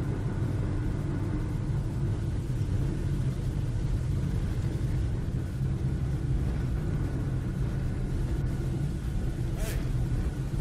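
Steady low rumble of a car's engine and tyres, heard from inside the cabin while driving at a constant speed.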